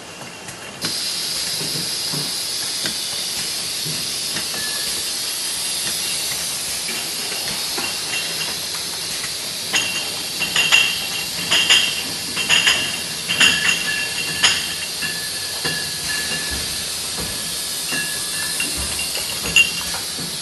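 Automatic beer bottle filler-capper running, with a steady hiss that starts suddenly about a second in. Glass bottles clink against each other and the machine several times in the middle.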